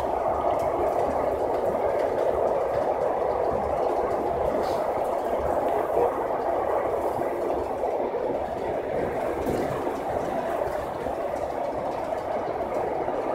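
Steady running noise of a moving Aeroexpress electric train heard from inside the passenger car: an even, unbroken rush of wheels on rails.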